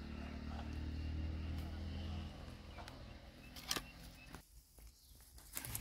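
A vehicle engine hums steadily for the first couple of seconds and then fades. After it come scattered clicks and rustles of a fish being handled and dropped into a nylon mesh keepnet among leaves, the sharpest click a little before four seconds in.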